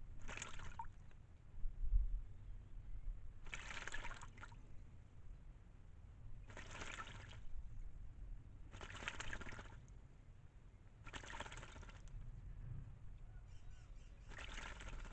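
White-naped jay bathing in a shallow pool of water, splashing in six short bouts a few seconds apart.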